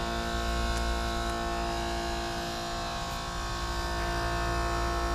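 Commercial air-conditioning units running: a steady machine hum made up of many held tones.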